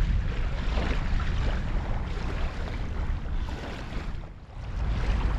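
Wind buffeting the microphone, a steady low rumble under a hissing haze, easing briefly about four seconds in.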